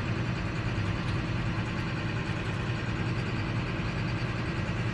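John Deere 7530 tractor's six-cylinder diesel engine running steadily, heard from inside the cab.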